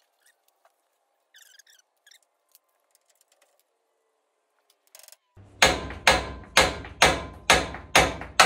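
Hammer striking steel steering parts, knocking a tie rod end loose from a C10's front steering: seven sharp, ringing blows about two a second, starting a little past halfway, after a few faint tool clinks.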